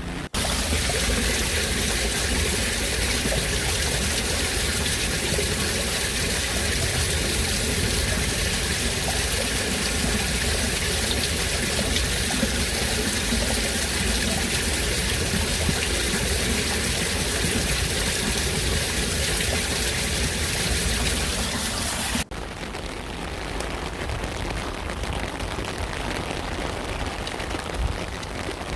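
Steady heavy rain with water pouring and running. About three-quarters of the way through it cuts abruptly to quieter, softer rain.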